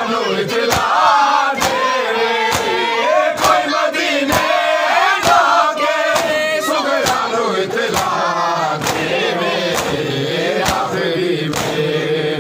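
Crowd of men chanting a nauha (mourning lament) together while doing matam, beating their bare chests with their hands. Sharp slaps land in a steady beat, roughly one a second, under the chant.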